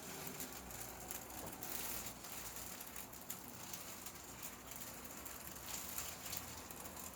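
Faint rustling with many small scattered clicks, as a patient shifts position on a chiropractic treatment table.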